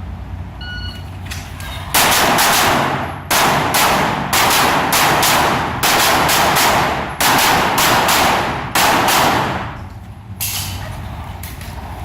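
An electronic shot timer gives a short start beep a little under a second in. From about two seconds a pistol fires fast strings of shots, many in quick pairs, roughly twenty in all over eight seconds. A few lighter, sharper cracks follow near the end.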